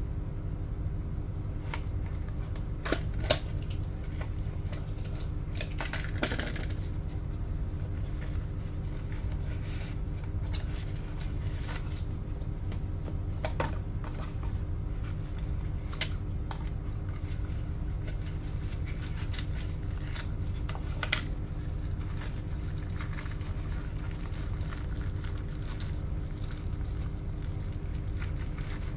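Small cardboard packaging handled and opened by hand: a few scattered taps and clicks of box and tray, with a short paper-and-card rustle about six seconds in, over a steady low hum.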